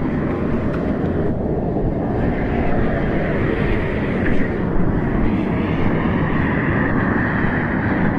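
Steady, loud running noise of a machine, with a faint whine in the second half.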